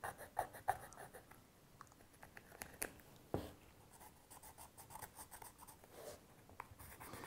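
Felt-tip pen scratching faintly in short strokes as it marks around a worn Shimano SPD-SL cleat on a road-shoe sole, recording the cleat's position, with a light knock about three and a half seconds in.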